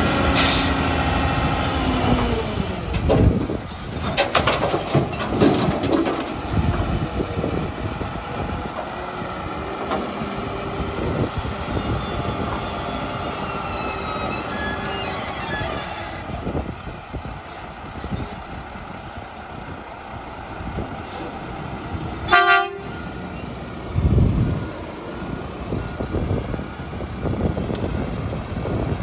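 Mack LR front-loader garbage truck working its Curotto-Can automated arm: engine and hydraulics running steadily, with pitch glides as the can is worked over the cab and lowered. There is a short sharp burst about 22 seconds in and a low thump about two seconds later.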